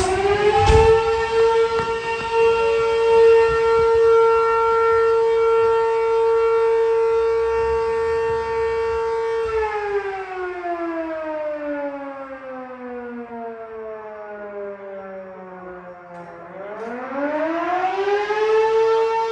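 Fire house siren sounding to call out the crew for a structure fire. It winds up to a steady high wail, holds it for about nine seconds, slowly winds down to a low moan, then winds back up to full pitch near the end.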